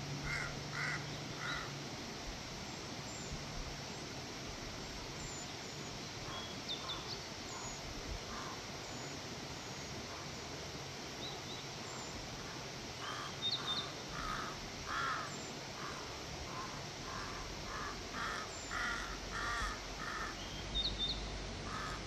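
Crows cawing: three quick caws at the start, then after a pause a long run of repeated caws in the second half. A small bird chirps briefly now and then.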